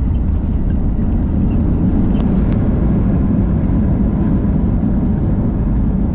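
Steady low rumble of a vehicle in motion, heard from inside.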